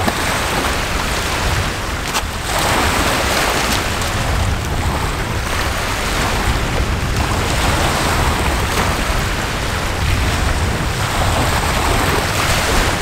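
Wind buffeting the microphone over small waves washing onto a pebble lakeshore, the wash swelling and falling every couple of seconds. A single sharp click about two seconds in.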